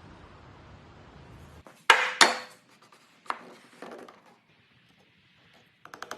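Wooden parts being knocked together, as when a joint is struck home: two loud sharp knocks with a slight ringing about two seconds in, a lighter knock a second later, then a fast even run of taps starting near the end.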